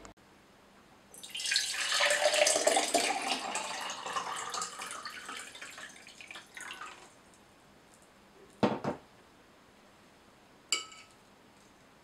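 Water poured from a plastic filter jug into a tall drinking glass for about six seconds. Then a single knock, and a short clink with a brief glassy ring near the end.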